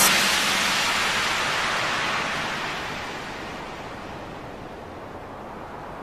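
Crash cymbal at the end of a short drum fill, ringing out as a bright hiss and fading over about four seconds into a steady low hiss.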